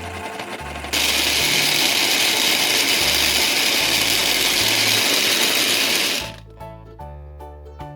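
A blender running loudly for about five seconds, starting about a second in after a softer buzzing and cutting off suddenly, over children's background music with a steady bass line.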